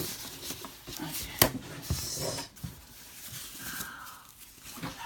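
Cardboard box and packaging being handled and opened, with rustling and a sharp knock about a second and a half in, then a second knock.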